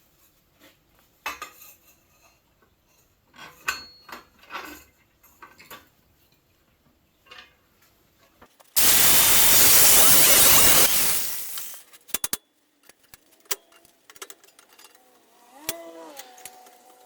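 A metal-cutting tool running in one loud burst of about two seconds just past the middle, cutting a wedge out of steel, then tailing off. Around it, clinks and knocks of metal parts being handled, with brief ringing near the end.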